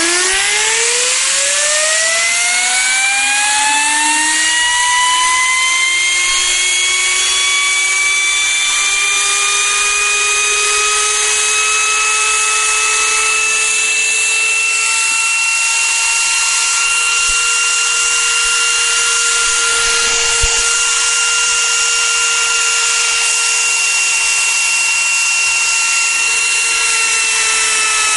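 Steam-driven Tesla disc turbine spinning a VW Bosch car alternator, over a hiss of steam. Its whine climbs quickly in pitch over the first few seconds as the steam is turned up, then levels off into a steady high whine that drops slightly near the end.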